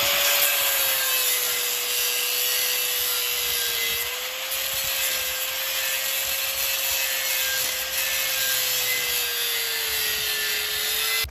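Angle grinder cutting into the steel handle collar of a rusty propane tank: a steady motor whine over a harsh, hissing grind of disc on metal. The whine dips slightly as the disc bites, about four seconds in and again near the end.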